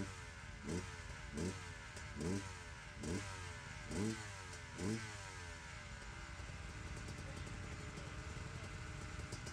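Motorcycle engine revved in quick throttle blips, about seven in a row less than a second apart, each rising sharply in pitch, then settling to a steady idle about six seconds in.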